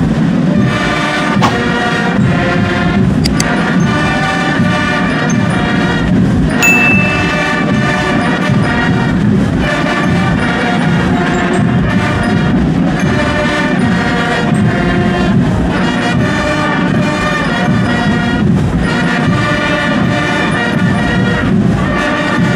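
Parade marching band playing, brass instruments over drums in a steady rhythm.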